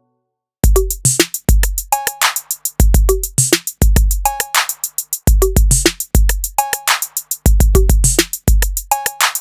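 Late-80s-style drum machine loop: deep kick drum, snare hits with a reverb tail and fast hi-hat ticks in a steady groove, starting about half a second in after a brief silence.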